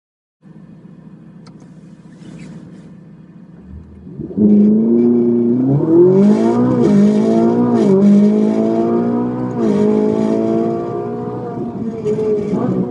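High-performance car's engine heard from inside the cabin: running low and steady for a few seconds, then revving hard from about four seconds in, climbing in pitch through the gears with a sharp drop at each of two upshifts.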